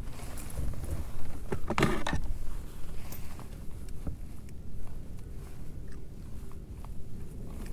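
Handling noises in a kayak as a catfish is landed: scattered knocks and clicks over a low rumble, with one louder burst of noise about two seconds in.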